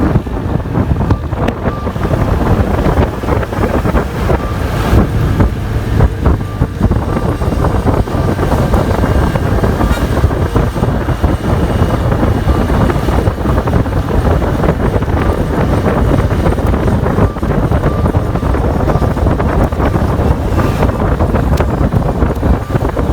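Heavy wind buffeting on the microphone over the steady rumble of a moving vehicle on the road.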